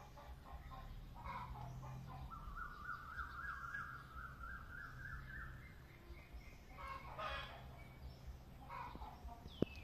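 Puppy howling: one long wavering call that slowly rises in pitch for about three seconds, starting a couple of seconds in.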